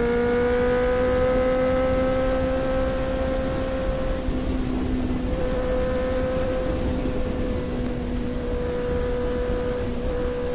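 Motorcycle engine with an aftermarket Scorpion exhaust, running at steady revs while riding, its pitch rising a little over the first few seconds and then holding. Wind rumbles on the microphone underneath.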